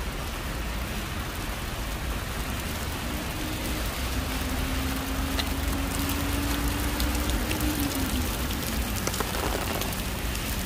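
Heavy rain falling steadily, a dense even hiss of downpour.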